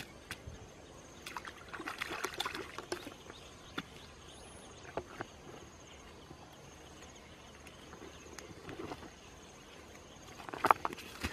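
Digging in wet soil with a wooden stick: scattered scrapes, knocks and crumbling earth in short bursts, loudest near the end.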